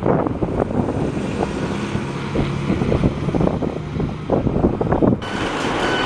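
Diesel double-decker bus engine running as the bus drives off, with gusting wind buffeting the microphone. A little over five seconds in the sound cuts abruptly to a Class 150 Sprinter diesel unit standing at a platform, with a steady high-pitched whine.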